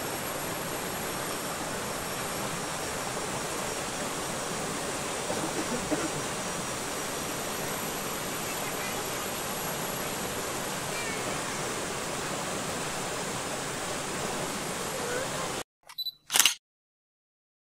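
Shallow rocky river rushing over boulders and small rapids, a steady hiss of flowing water. Near the end it cuts off abruptly, followed by two brief sounds.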